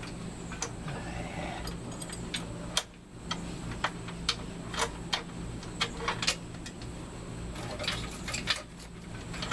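Steel chain links clinking in light, irregular clicks as the chain is fed a link at a time between an exhaust manifold and cylinder head, over a steady low hum.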